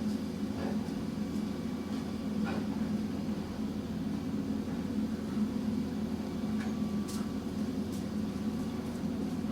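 Large vehicle's engine idling with a steady low drone, with a few faint clicks over it.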